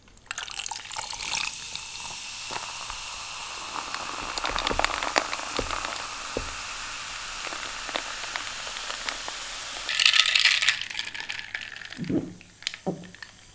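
Coca-Cola poured from a can into a glass of ice, a steady fizzing hiss with many small crackles of bursting bubbles, loudest about ten seconds in. Near the end, a few short sips through a straw.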